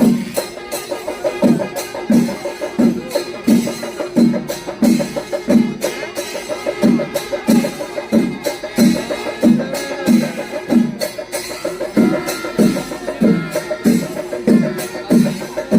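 Chenda melam: Kerala temple percussion ensemble playing, deep drum strokes falling about every two-thirds of a second under dense, rapid sharp stick strikes.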